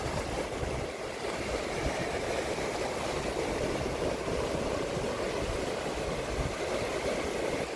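Ocean surf washing in over the rocks and churning in the shallows, a steady rush, with wind buffeting the microphone.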